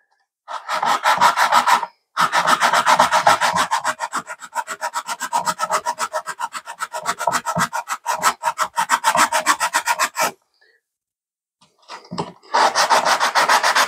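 A hand-held cutting tool scraped quickly back and forth across a G10 slingshot frame, cutting a band groove deeper. There is a short break near two seconds and a pause of about two seconds after ten seconds, then the strokes start again.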